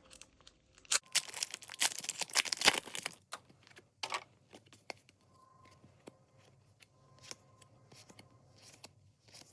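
A trading card pack's wrapper being torn open with a crinkly rip lasting about two seconds. It is followed by faint clicks as the cards are handled.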